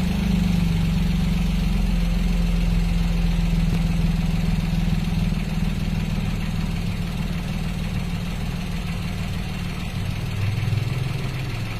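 Daihatsu Ayla 1.0-litre three-cylinder engine idling steadily, its note settling just after a rev at the start and changing briefly near the end. The car stutters under throttle, a misfire which the owner puts down to the spark plugs or ignition coil.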